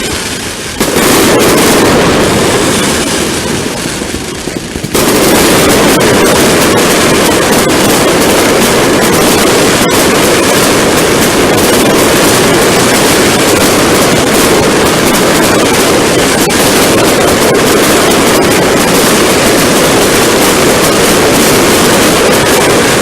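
Fireworks going off in a dense, continuous rattle of crackling bangs, jumping suddenly louder about a second in and again about five seconds in.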